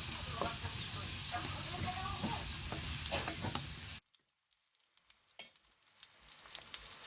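Chopped onion and grated carrot sizzling in a frying pan while being stirred, a steady hiss with crackles. About four seconds in it cuts off abruptly, then a frying sizzle with pops builds back up.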